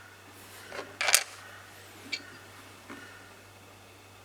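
Handling noise from rough opal stones being picked up and put down: a brief rustle about a second in and a few small, sharp clicks, over a faint steady hum.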